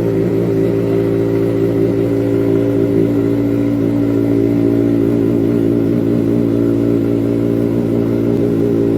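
Kawasaki ZX-4RR's four-cylinder engine running at a steady speed through its exhaust, an even pitch with no revving up or down.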